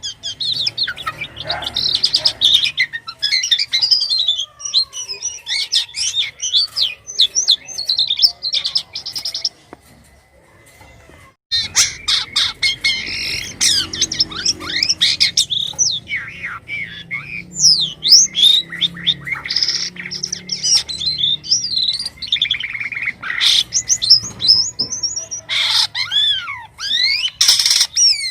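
A captive jalak kapas starling singing continuously: a rapid, varied string of chirps, whistles and squeaky rising and falling glides, with a pause of about a second and a half near the middle.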